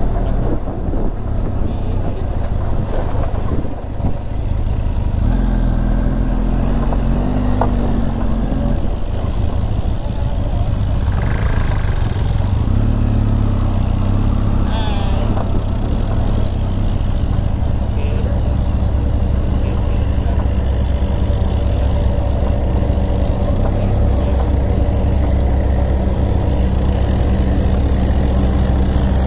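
Motor vehicle engine running steadily while driving, its pitch shifting a few times as the speed changes.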